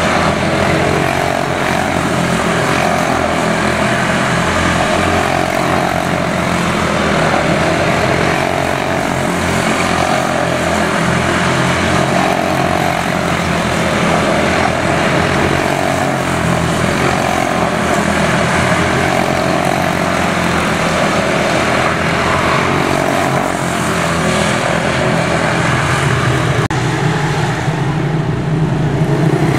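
Several quarter midget race cars with single-cylinder Briggs & Stratton Animal engines running flat out together around the track, a steady loud drone that rises and falls every few seconds as the cars circle.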